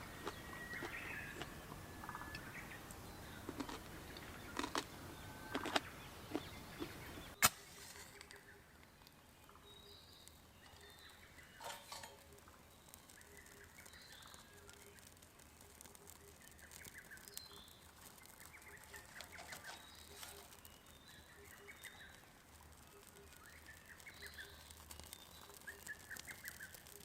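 Wild forest birds calling with short, scattered chirps. In the first few seconds there are several sharp clicks and knocks of something being handled, and one sharp click about seven seconds in.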